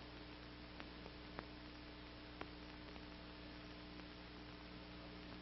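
Faint steady electrical hum with hiss, the background noise of an old film soundtrack, with a few faint clicks.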